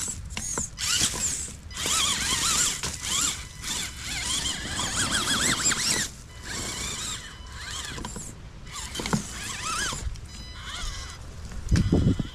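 Electric motor and geared drivetrain of an RC rock crawler whining in short throttle spells, the pitch rising and falling as it crawls, with brief pauses between spells. A louder low thump comes near the end.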